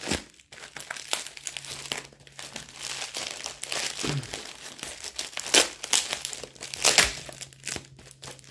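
Plastic packaging crinkling and rustling as it is unwrapped by hand, with tape and wrapping being pulled and torn off. The crackles are irregular, with two louder ones in the second half.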